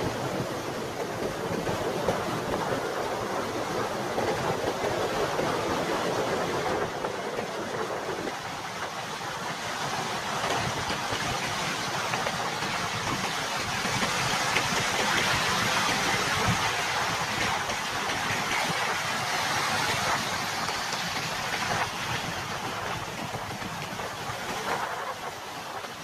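Ocean waves breaking and surf washing through the shallows: a steady rush that swells a little louder about halfway through.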